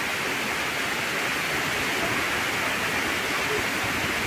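Heavy tropical downpour: a steady, even hiss of rain.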